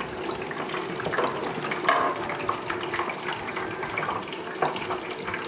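Hot oil bubbling and crackling steadily in a Butterball electric turkey fryer, with a whole turkey freshly lowered in: the moisture in the bird boiling out into the oil.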